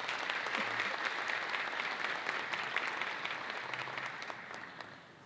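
Audience applauding, fading out over the last second.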